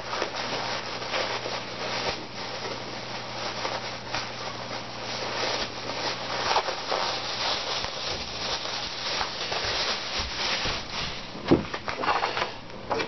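Plastic packaging crinkling and rustling as it is pulled off a bottle by hand, with one sharper knock near the end.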